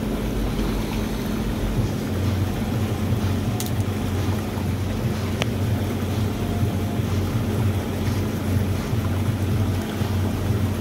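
Hot tub jets running: a steady low pump hum under churning, bubbling water.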